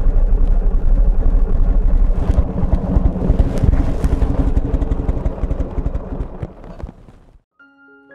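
Buell XB12Scg motorcycle's V-twin engine running with a low, throbbing pulse. It grows louder a little over two seconds in, then fades out near the end. Soft piano-like background music begins as it dies away.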